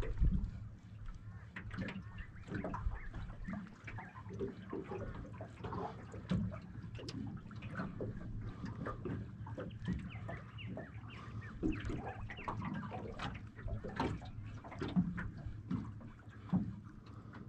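Small, irregular splashes and flicks on the water surface, many short ones scattered throughout: baitfish flicking at the surface around the boat, over a low steady background wash.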